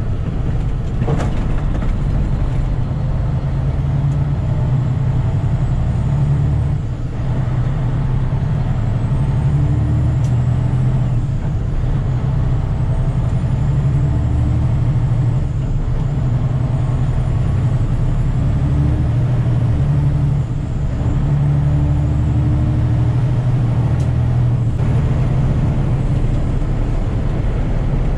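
Truck's diesel engine running steadily under way, a loud low rumble, with the engine note dropping briefly twice, about seven seconds in and again around twenty seconds.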